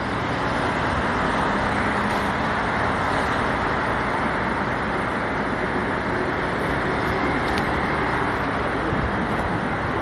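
Steady road traffic noise, the even hum of many cars passing.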